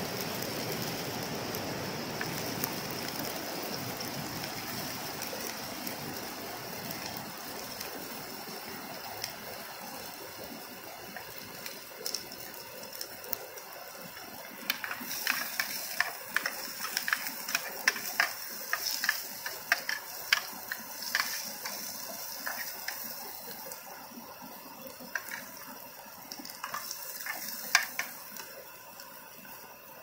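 A metal spoon stirring in an aluminium mess tin on a gas camping stove, clinking sharply and irregularly against the pan through the second half. Under it runs a steady rush of stream water that fades slowly.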